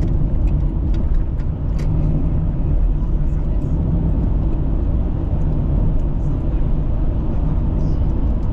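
Car on the move: a steady low rumble of engine and tyre road noise, with a few faint light ticks.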